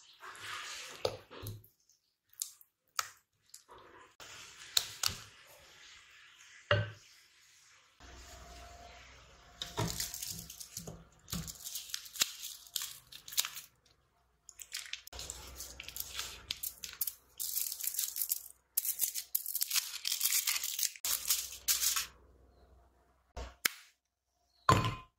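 Food-preparation handling noises: irregular sharp clicks and taps, with long stretches of scraping or crinkling over a faint low hum through the middle.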